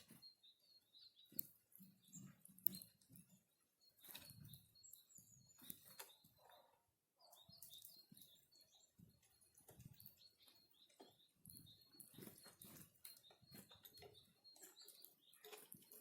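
Faint, short high chirps of small birds at a winter feeding spot, repeated many times, with scattered light taps and soft flutters of wings.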